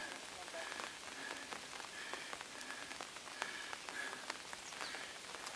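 Steady hiss of light rain falling, with a few scattered light knocks of footsteps on metal-framed stairs.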